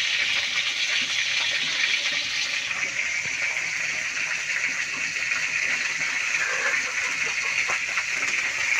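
Hot oil sizzling steadily in a wok on a gas stove, a continuous frying hiss with a few faint pops.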